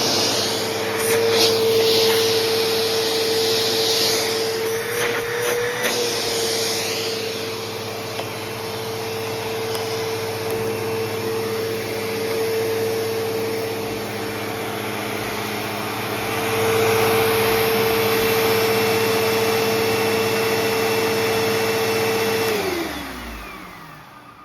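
Bissell CleanView bagless upright vacuum running with a steady motor whine, switched off near the end, its pitch falling as the motor winds down. The owner takes its brush roll to be already going bad.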